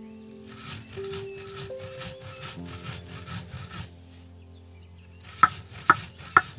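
Stone muller rubbed back and forth on a stone grinding slab (shil-nora), crushing dry spices such as dried red chilli, with even rasping strokes about three a second. The grinding stops about four seconds in, and three sharp knocks follow near the end, about half a second apart. Background music plays throughout.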